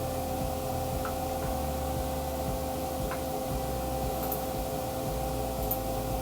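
A steady room hum, holding a few fixed tones over a low rumble and faint hiss, with two faint ticks, about a second and about three seconds in.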